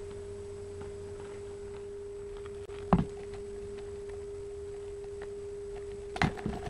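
A steady, faint mid-pitched tone hums throughout. A single sharp knock comes about three seconds in, and a few lighter knocks follow near the end.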